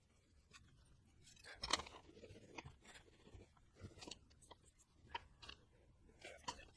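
Near silence with faint, scattered small clicks and crackles, a few a second, the loudest just under two seconds in.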